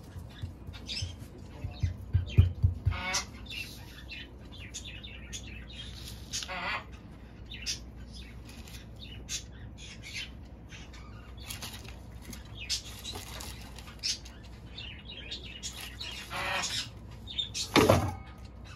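Birds chirping and calling on and off, with a few low thumps about one to three seconds in.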